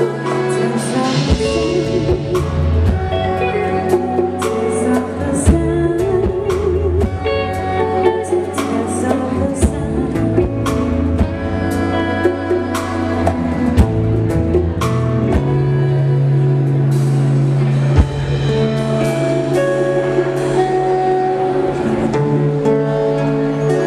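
A live band plays a neo-soul, Afro-jazz song: saxophone over acoustic and electric guitars, bass guitar and a drum kit with cymbal hits.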